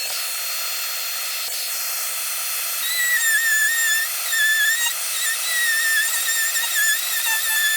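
Dremel rotary tool with a diamond-coated bit cutting into the painted fuselage of a model jet. It makes a steady high hiss, and from about three seconds in a high whine whose pitch dips and wavers as the bit bites under load.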